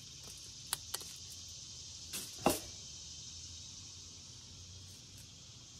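Roasted armadillo tail being peeled and scraped with a knife over aluminium foil: a couple of light clicks, then two short, louder scraping crackles about two seconds in.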